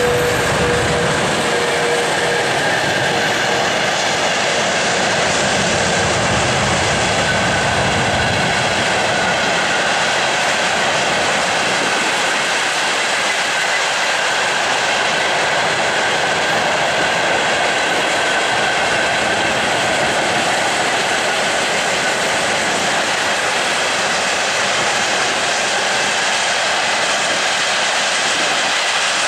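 Freight train hauled by a VL80K electric locomotive rolling past, wagon wheels clattering over the rails in a steady, loud rush. A strong steady tone heard at the start fades out over the first few seconds.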